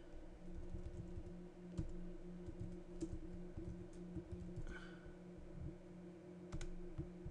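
Scattered faint keystrokes on a computer keyboard and mouse clicks, over a steady low hum.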